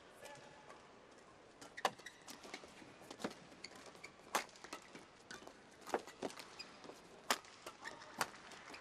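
Badminton rally in men's doubles: racket strings striking a shuttlecock, a run of sharp cracks roughly one to one and a half seconds apart, about six strong hits with a few lighter ones between.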